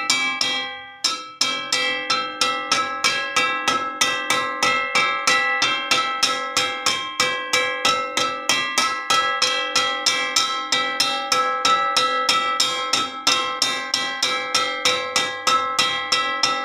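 A metal wok struck over and over at an even pace of about three hits a second, each hit ringing on in steady metallic tones. There is a short break about a second in.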